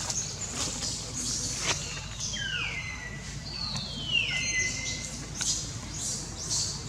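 Two high, falling whistle-like animal calls, each about a second long, one after the other near the middle, over a steady low rumble with a few short clicks.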